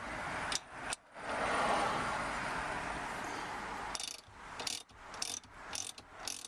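Ratchet wrench with an 18 mm socket turning out the rear-seat frame bolts: a fast, continuous rasp of pawl clicks for about four seconds, then single clicks about every half second.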